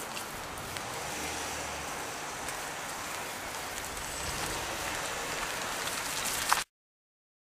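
Steady hiss of outdoor street ambience picked up by a handheld camcorder's microphone. It ends in a sharp click about six and a half seconds in, then cuts to dead silence.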